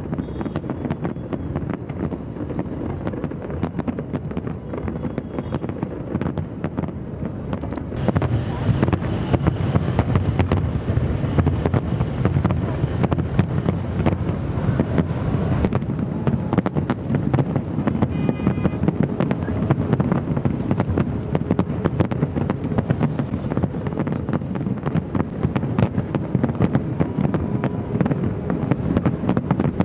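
Wind buffeting the microphone: a steady low rumble full of crackling gusts, growing louder about eight seconds in.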